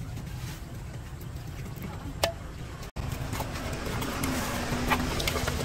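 A few sharp clicks of a wooden pestle and spoon knocking against a clay mortar, the loudest near the end. Under them runs a steady low rumble of an idling engine.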